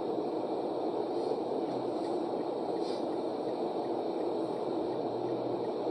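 Steady road and engine noise inside a moving car's cabin, with one faint short tick about three seconds in.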